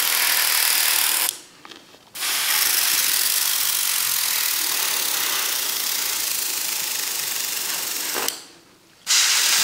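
Gravity-feed airbrush hissing steadily as it sprays thinned weathering paint. The hiss stops twice for under a second, about a second in and near the end.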